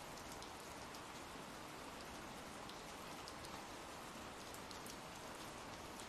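Faint, steady ambient rain sound effect: an even hiss of rainfall with scattered small drop ticks.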